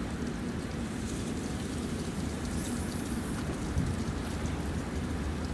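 Steady outdoor noise: wind rumbling on the microphone, with a faint hiss above it.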